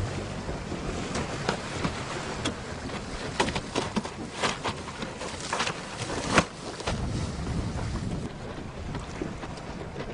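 Wind buffeting the microphone over rushing, splashing water from a windsurfer planing across choppy sea, with a run of sharp slaps and knocks, the loudest about six seconds in.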